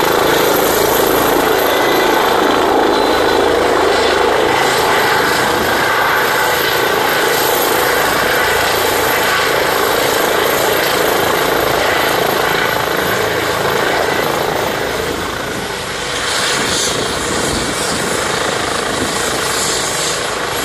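Twin-turbine ADAC air-rescue helicopter with a ducted tail rotor settling onto the ground from a low hover, then running on the ground with its rotor turning. The rotor and turbine noise is loud and steady, dipping briefly about 16 seconds in.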